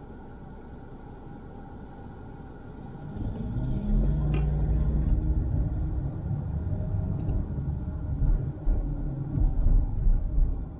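Car moving off from a standstill and accelerating. A low idle-level hum for the first few seconds, then, about three seconds in, a loud low rumble of engine and road noise as the car gets under way.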